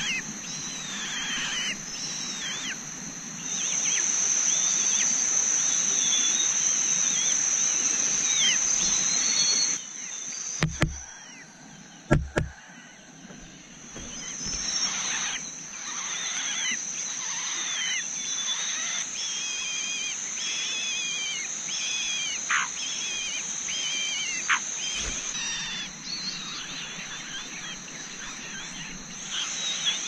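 Birds chirping: many short, falling calls repeated over and over, over a steady high-pitched buzz. Two sharp knocks about a third of the way in.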